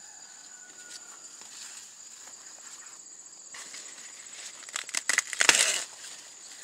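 Dry corn leaves and husks rustling and crackling in a burst of about two seconds, loudest near 5 to 6 s in, over a steady high-pitched drone of insects.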